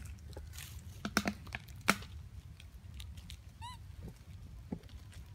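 Infant long-tailed macaques at play on dry leaf litter: a few sharp short squeaks or clicks about a second and two seconds in, and one brief high, arching squeak about two-thirds of the way through.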